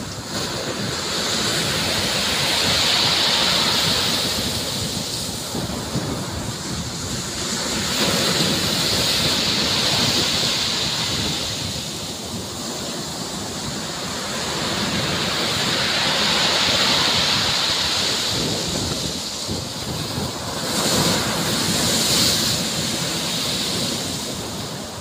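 Sea surf breaking and washing up onto a pebble beach, a steady rushing hiss that swells and fades with each wave, about every six or seven seconds.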